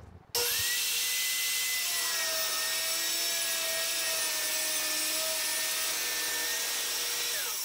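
Stanley handheld circular saw ripping a long cut through a melamine board: a steady high whine over an even hiss, starting abruptly about a third of a second in.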